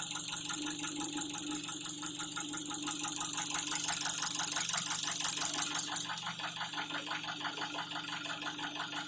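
Nissan QG18DE 1.8-litre four-cylinder engine idling with a fast, loud chatter from its LPG gas injectors. About six seconds in the sound drops sharply as the engine goes over to petrol, leaving a quieter running engine with a knock from the lower part of the engine that the owner is trying to trace.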